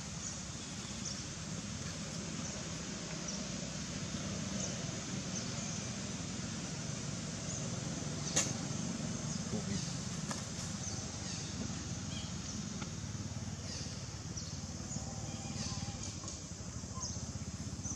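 Steady outdoor background rumble with a few faint, short, high chirps scattered through it and one sharp click about eight seconds in.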